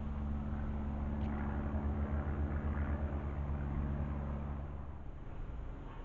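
A motor or engine running steadily, a low hum with a few fixed pitches. It drops away suddenly about five seconds in.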